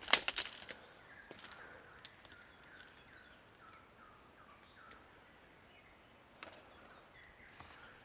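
Footsteps crunching on dry fallen bamboo leaves and stalks, loudest in a burst at the start, with a couple more steps near the end. In between, a bird calls a quiet run of short, repeated notes.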